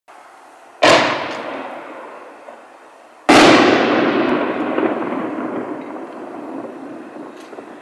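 Consumer artillery-shell fireworks going off: two sharp bangs about two and a half seconds apart, the second louder, each trailing off in a long echoing rumble.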